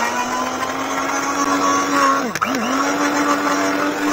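Electric hand mixer running with its beaters in waffle batter, a steady motor hum whose pitch dips briefly twice in quick succession about halfway through.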